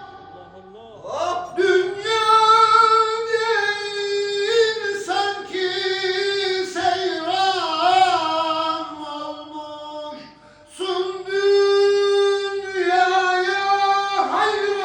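A high solo voice singing a Turkish ilahi (Sufi devotional hymn) in long, held, melismatic notes with vibrato, pausing briefly about a second in and again about ten seconds in.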